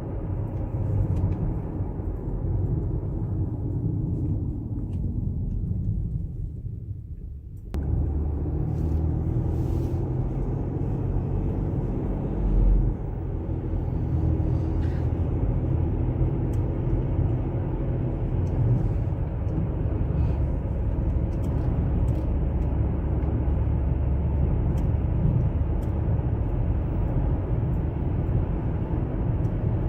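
Car driving, a steady low road and engine rumble. The rumble fades away over several seconds, then comes back suddenly at full strength about eight seconds in and runs on steadily, with one short louder bump a few seconds later.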